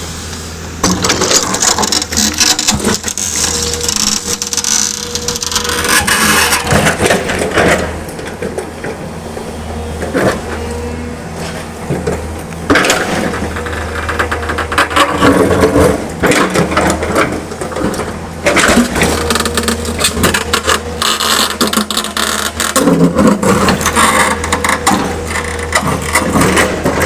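L&T-Komatsu PC200 hydraulic excavator with its diesel engine running steadily, and long stretches of loud scraping and crunching as its bucket works against rock and stones.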